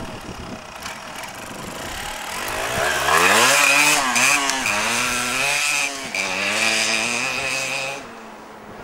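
Yamaha DT 125's two-stroke single-cylinder engine pulling away and accelerating hard across rough grass. It runs quietly at first, then revs up about two and a half seconds in, and its pitch rises and falls several times with the throttle. It stops abruptly near the end.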